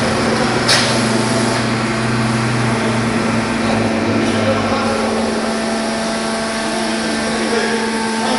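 Metalika C-1200 concrete pipe machine running as its frame travels sideways: a steady mechanical hum with a constant tone, and a sharp click less than a second in.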